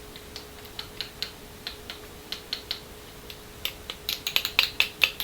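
Light, irregular clicks and taps of small parts being handled while a shock absorber strut is reassembled, coming faster in the last second or so. A faint steady hum sits underneath.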